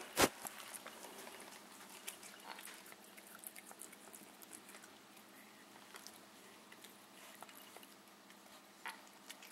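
Siamese cat licking and chewing at the remains of a meadow vole: soft, scattered wet clicks and smacks. There is one sharp knock just after the start.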